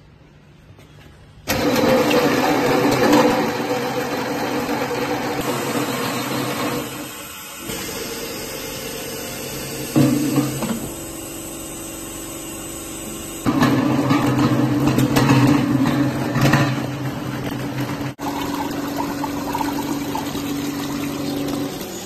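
Automatic metal paint-pail line running: a steady mechanical hum with a hiss of air and conveyor noise. It starts abruptly about a second and a half in, dips for a moment around eight seconds, and gets louder again from about thirteen seconds.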